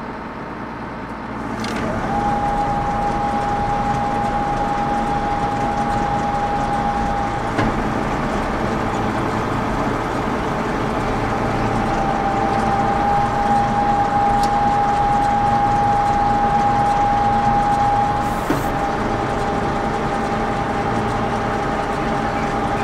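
John Deere tractor engine running, picking up about a second and a half in, with a steady high whine over it from then on.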